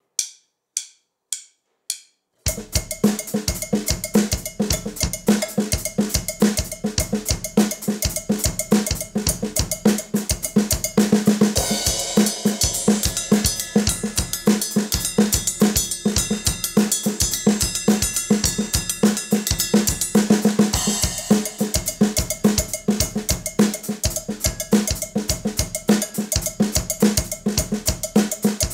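Drum kit playing a sixteenth-note funk groove, with a steady snare backbeat and bass drum under busy sixteenth notes, counted in by four evenly spaced clicks. From about a third of the way in to two-thirds, the sixteenths move onto a large cymbal, giving a brighter wash, and then return.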